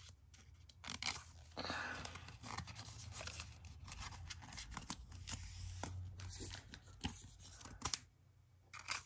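Hands handling Pokémon trading cards and foil booster-pack wrappers: soft crinkling and rustling with small sharp taps, easing to a lull near the end.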